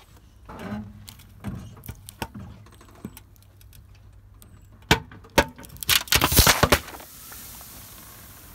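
Car tyre rolling onto four full aluminium cans of Mirinda orange soda. A few creaks, then two sharp cracks about half a second apart and a quick cluster of loud cracks as the cans split and burst, followed by a steady hiss of soda spraying out.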